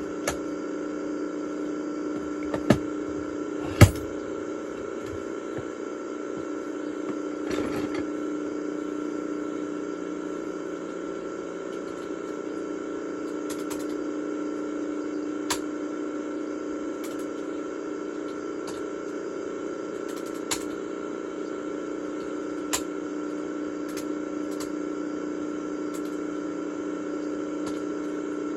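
The strange sound at the start and end of a VHS tape, played back: a steady electronic hum with a few held tones, broken by scattered sharp clicks, the loudest about four seconds in.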